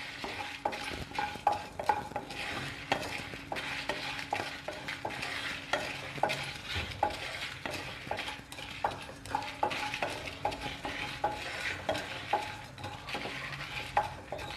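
Wooden spatula stirring and scraping whole coriander seeds and dried red chillies as they roast in a hot non-stick kadai. An irregular run of short scrapes and taps, two or three a second, over a faint sizzle.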